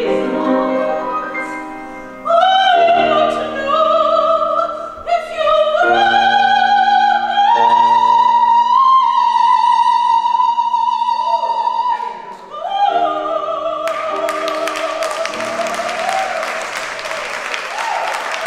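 Classical-style singing with piano accompaniment, the voice holding long notes with vibrato. Applause breaks out about four seconds before the end as the singing finishes.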